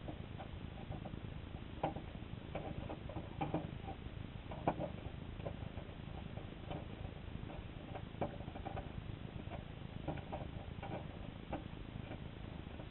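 Underwater sound in a shallow creek inlet: a steady low rumble of the water with irregular small clicks and ticks scattered throughout, a few sharper ones a couple of seconds and about five seconds in.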